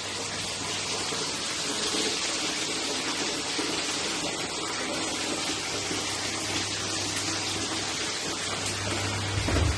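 Chicken pieces deep-frying in hot oil in a kadai: a steady sizzle, with a faint low hum underneath.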